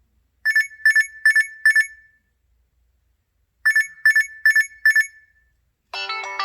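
LG X2 (K30) phone's plain "Alarm" tone: a digital beep-beep-beep-beep, four quick high beeps at one pitch, a pause, then four more. Near the end a different melodic tone begins.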